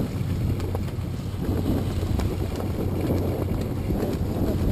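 Wind buffeting the microphone: a steady low rumble, with a few faint clicks scattered through.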